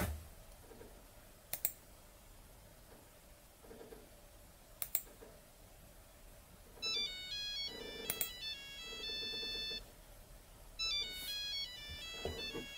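Mobile phone ringtone playing a short electronic melody, starting about seven seconds in and starting over about four seconds later. Before it, a few sharp clicks of a computer mouse.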